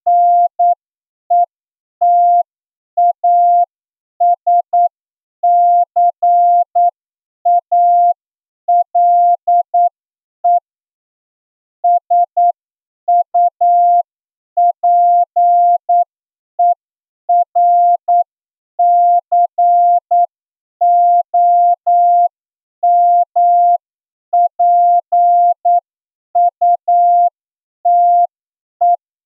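Morse code sent as a single steady beep tone keyed in short and long marks (dots and dashes) at a slow 8 words per minute: a receiving-test passage for the amateur radio licence exam. A longer gap between marks comes about eleven seconds in.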